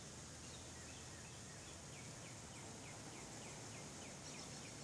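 A songbird singing faintly: a rapid series of short falling notes, about four a second, over a steady hiss.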